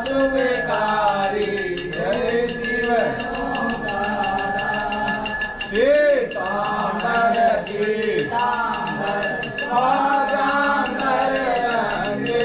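Worshippers singing a Shiva aarti together, with a temple bell ringing steadily alongside.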